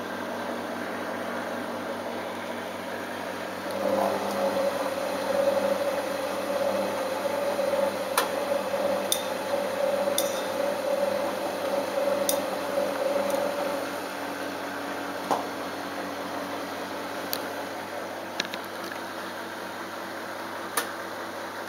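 Balay T-8295 washing machine running its delicate rinse with a steady motor hum. A louder, wavering whine comes in about four seconds in and stops some ten seconds later, with a few sharp clicks scattered throughout.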